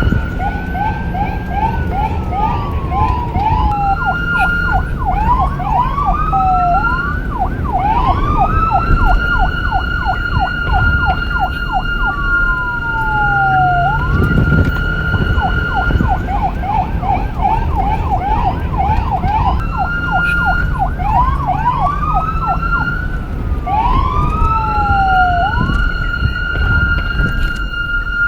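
Police car siren, loud, cycling through its tones: slow rising wails that hold a high steady note, runs of rapid yelp chirps at several a second, and falling sweeps. A low rumble runs underneath.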